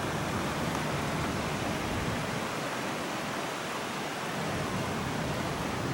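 Steady rush of a waterfall and creek water, an even unbroken hiss.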